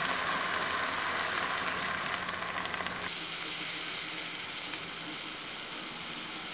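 Chicken pieces sizzling in a hot pan as soy sauce and then vinegar are poured over them. The steady hiss changes abruptly about three seconds in and slowly fades as the liquid cools the pan.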